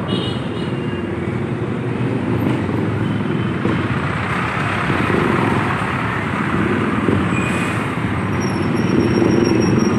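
Steady engine and road noise of a moving motor vehicle in street traffic, with a thin high squeal near the end.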